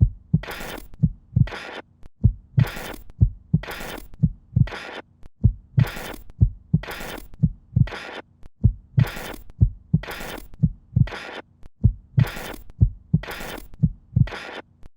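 A fast, even rhythm of low heartbeat-like thumps alternating with short hissing bursts, about two a second, over a faint steady hum, like a sound-designed electronic soundtrack.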